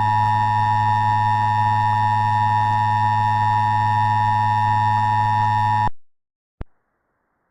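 Emergency Alert System attention signal: a steady two-tone alarm held over a low buzz, cutting off suddenly about six seconds in, followed by a single short click.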